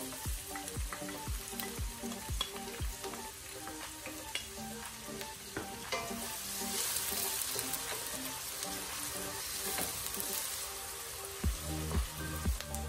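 Chopped onions frying in hot oil in a stainless steel pot, sizzling steadily, while a slotted spatula stirs them with scraping and short knocks against the pot, most in the first few seconds and again near the end.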